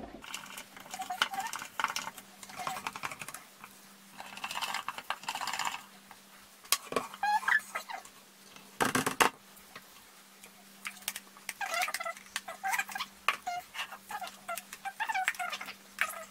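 A spatula stirring thick soap batter in a plastic jug, scraping and squeaking against the sides, with light clicks and taps of plastic jugs being handled. A faint steady hum sits underneath.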